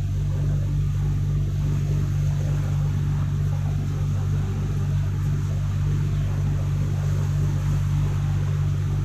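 Small open canal tour boat's motor running steadily, a constant low drone.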